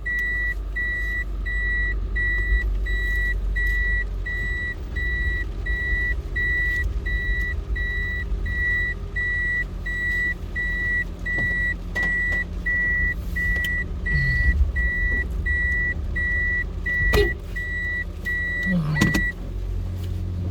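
A car's warning chime beeps steadily, about twice a second, over the low rumble of the idling engine inside the car. It stops just after a click near the end.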